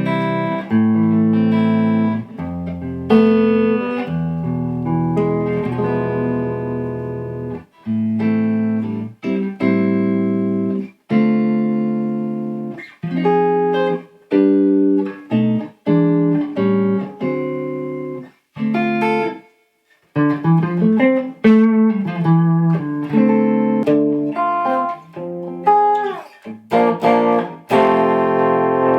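Fender Stratocaster electric guitar played clean through a guitar amp over a wireless guitar system: held, ringing chords at first, then shorter chords and single-note phrases with brief breaks, one clear pause about two-thirds of the way through.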